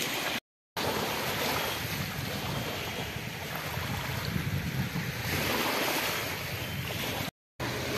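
Small sea waves washing over a pebble shore, mixed with wind rumbling on the microphone, in a steady wash of noise. The sound cuts out briefly twice, about half a second in and near the end.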